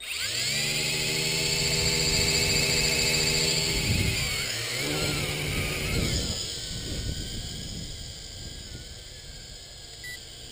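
Wltoys V666 quadcopter's motors and propellers start up suddenly and buzz with a steady whine close by. The pitch wavers between about four and six seconds in as the quadcopter lifts off from the hand, then the sound fades as it flies away.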